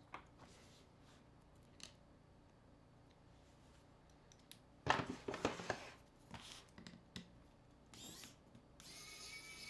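Small clicks, then a loud clatter of small metal parts about five seconds in as a precision screwdriver is fitted with a bit from a plastic bit case. Near the end come scraping clicks and a short squeak as the screwdriver works screws on a smartphone being taken apart.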